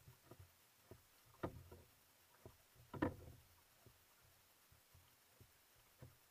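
Faint kayak paddle strokes: a few short splashes and knocks as the paddle works the water, the two loudest about a second and a half and three seconds in.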